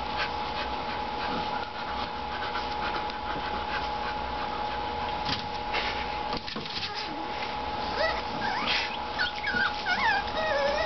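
American Bully puppies whimpering and yipping, with a rising whine about eight seconds in and a run of short, high squeaks near the end.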